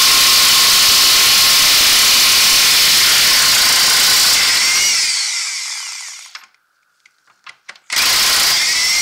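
Impact wrench running on a 15/16 in nut on an ATV's rear swing arm bolt, spinning it loose. It winds down with a falling whine about five seconds in, a few small clicks follow, then a second short burst near the end.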